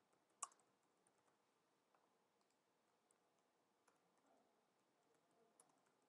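Near silence with a few faint computer keyboard and mouse clicks as text is typed into a form, one sharper click about half a second in.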